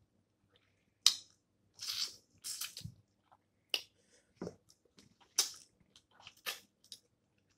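Snow crab shells being cracked and broken apart by hand close to the microphone: irregular sharp cracks and snaps, with short crunching bursts about two seconds in.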